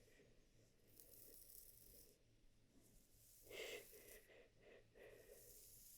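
Faint close-up ASMR sounds: a soft breathy hiss about a second in, then a cluster of soft rustles past the middle, like hands playing through hair near the microphone.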